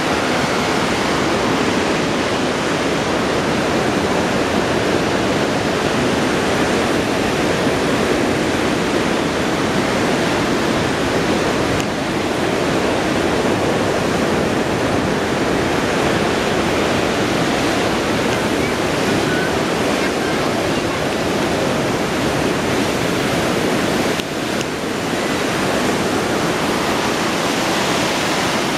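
River rapids and whitewater below a dam spillway at high water, rushing in one steady, even wash of noise. The noise dips briefly about 24 seconds in.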